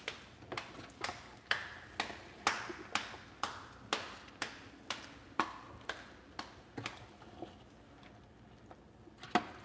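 A steady series of light taps, about two a second, fading away about three-quarters of the way through, with a couple more near the end.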